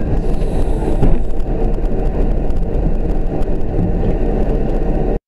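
Steady engine and tyre noise of a car driving on a road, heard from inside the cabin through a dashcam microphone. It cuts off suddenly near the end.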